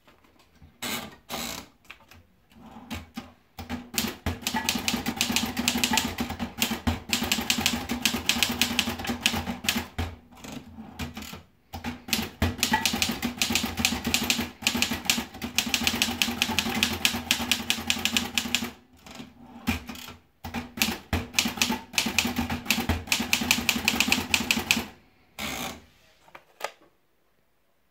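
Erika model 10 typewriter being typed on: quick runs of key strikes clacking against the platen. A few single strokes come at the start, and the typing breaks off briefly about 11 and 19 seconds in.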